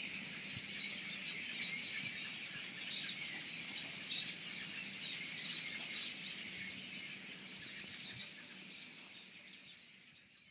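Dense chorus of many small birds chirping and calling over one another, fading out near the end.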